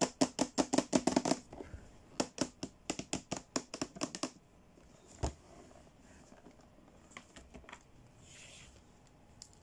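Fingernails tapping quickly on a clear hard plastic case, in two runs of sharp clicks, then a single thump about five seconds in, followed by faint handling rustles.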